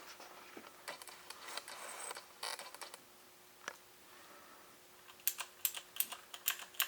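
Keystrokes on a Corsair K70 mechanical keyboard with clicky Cherry MX Blue switches, pressed lightly without bottoming out the keys: a run of sharp clicks, about three or four a second, starting about five seconds in. Before that come faint handling noises and a single click.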